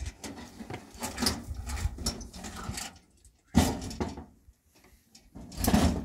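Rusty sheet-metal door panel being pushed and shifted in a shelter doorway: irregular scraping and clanking, with a sharp knock about three and a half seconds in and a longer scrape near the end.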